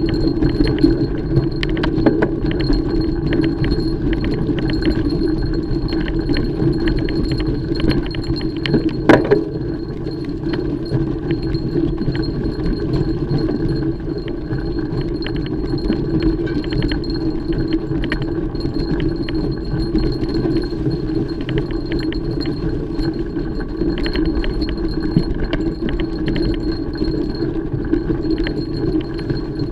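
Mountain bike being ridden over a trail: a steady rolling noise with continual metallic rattling and clinking from the bike, a faint steady high whine, and one sharp knock about nine seconds in.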